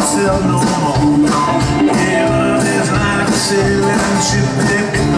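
Live rock band playing at full volume, with electric and acoustic guitars, bass guitar and keyboard.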